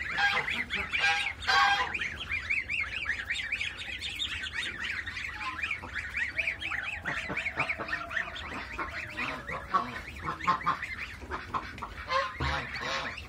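A pen of young waterfowl, Pekin ducklings and goslings, peeping rapidly and continuously in high, thin calls. Louder honking calls come in the first second or two and again near the end.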